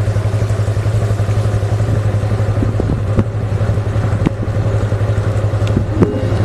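An engine running steadily with a low, even hum, with a few light clicks over it.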